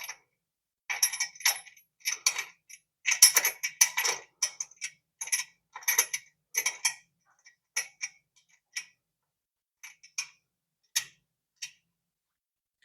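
Light metallic clicks and clinks, irregular and tapering off after about seven seconds, from bolts and washers being handled and fitted into a steel bed frame.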